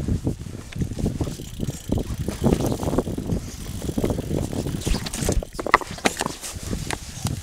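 Mountain bike riding fast down a dirt trail covered in dry leaves: tyres running over the ground and the bike rattling over bumps, with a hard jolt about five and a half seconds in.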